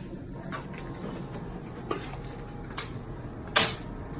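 Four short, sharp knocks at uneven intervals, the last and loudest near the end, over a low steady background hum.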